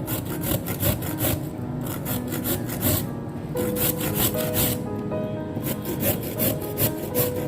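Knife strokes on a wooden chopping board, a rapid run of sawing, scraping cuts at about three a second as food is sliced. Soft background music plays underneath.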